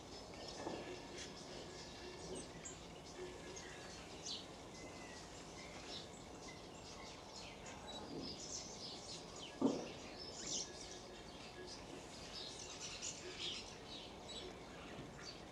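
Small birds chirping and twittering faintly, many short high calls scattered throughout, with a few low sounds, the loudest a brief thump about ten seconds in.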